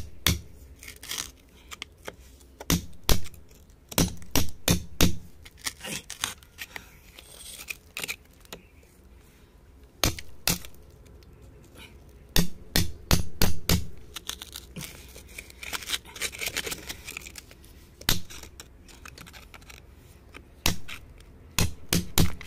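A flat metal chisel scraping and picking at crumbly rock and packed dirt. It comes in irregular clusters of sharp scrapes and clicks, with short pauses between.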